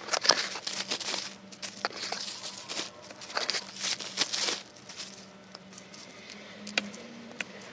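Plastic bubble wrap and bags crinkling and rustling as fuel injectors are unwrapped by hand, busy for the first four and a half seconds, then a few scattered light clicks over a faint steady hum.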